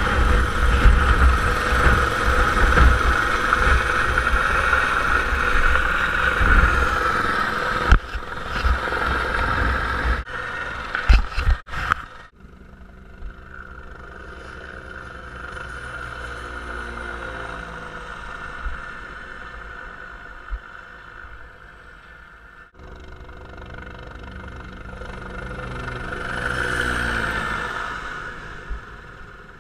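Helicopter close by, loud, with heavy low rumble under a steady turbine whine and a few sharp knocks between about 10 and 12 seconds in. It then drops to a more distant helicopter sound, turbine whine and rotor beat, which swells as the helicopter passes near the end and fades again.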